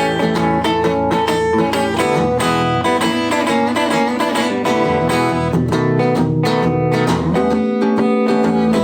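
Ibanez AF95 hollow-body archtop electric guitar being played: continuous chords and picked notes, each chord left ringing.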